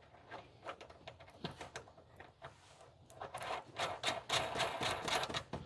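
Small metal clicks and rattles as a replacement cabinet cam lock and its nut are handled and fitted into the cabinet, sparse at first and busier from about halfway through.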